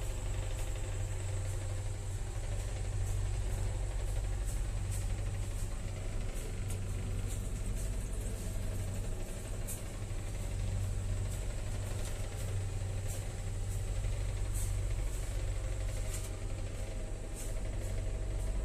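Steady low hum of a passenger train coach, heard inside its small toilet compartment, with a faint high whine and scattered light ticks over it.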